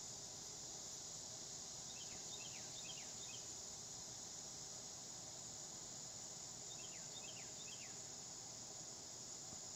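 Steady, high-pitched chorus of insects such as crickets. Over it, a small bird gives two quick bursts of short falling chirps, about two seconds in and again about seven seconds in.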